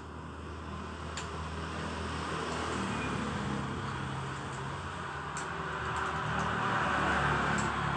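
A steady mechanical hum with a rushing noise that swells and eases, loudest near the end, and a few faint clicks.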